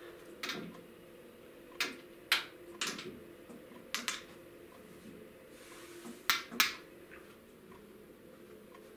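Pool cue and billiard balls clacking on a pool table: about eight sharp clicks, several in quick pairs, as a shot is struck and the balls hit.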